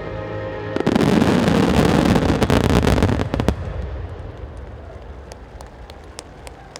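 Fireworks finale: about a second in, a dense barrage of shell bursts and crackling sets in and lasts about two and a half seconds, then dies away into scattered sharp clicks.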